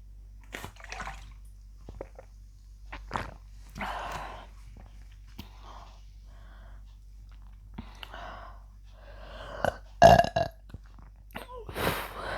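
A woman burping again and again from drinking carbonated Pepsi: a series of separate burps, the loudest about ten seconds in and another near the end.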